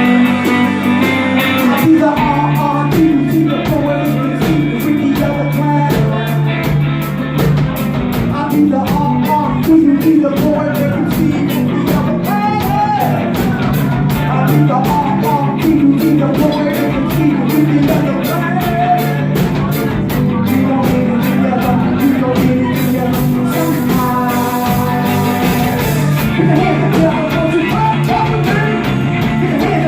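Rock music with guitar, drums and singing, played at a steady full level.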